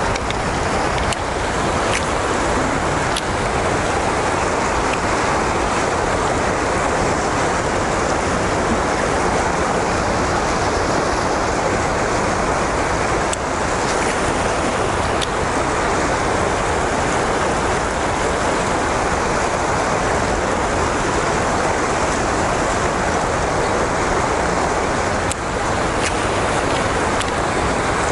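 Steady rush of fast river water flowing below a lock and dam, with a few faint clicks.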